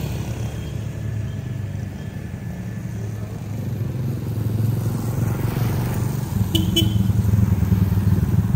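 Roadside traffic: a steady low engine drone, growing louder over the last few seconds as a small motorcycle approaches and passes close by. A brief high chirp sounds about six and a half seconds in.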